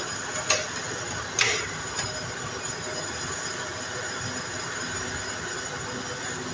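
Plastic front cover of a Mitsubishi Electric split AC indoor unit being fitted onto the unit: two sharp plastic clicks about a second apart, the second the louder, over a steady background hiss.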